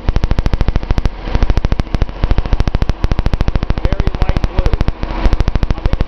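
Datsun L28 inline-six engine idling, heard close up as a rapid, even ticking of about a dozen sharp clicks a second. The engine has a misfire on cylinder 6, which the owner puts down to a lean mixture from a possibly clogged filter on that fuel injector's tip.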